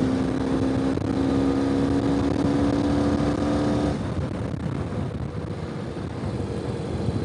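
Ural sidecar motorcycle's boxer-twin engine running under throttle, its note rising slowly. About four seconds in the note drops away and the engine runs on lower.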